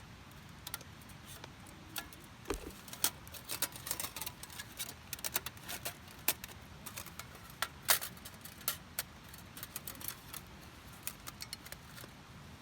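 Irregular light clicks and clinks of small hard objects, many in a row, the loudest about eight seconds in.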